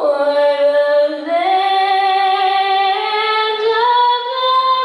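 A woman singing long, held notes that step upward in pitch.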